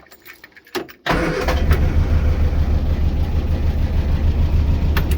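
A few clicks, then the Morris Minor's four-cylinder engine starts about a second in and runs steadily before cutting out near the end. This is a misfire check with a plug lead pulled, and the engine runs no worse for it, which marks cylinder 3 as the dead cylinder.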